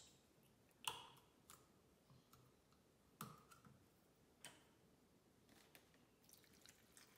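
Near silence broken by a few faint clicks and light knocks of kitchen items being handled, four or five of them spaced a second or so apart.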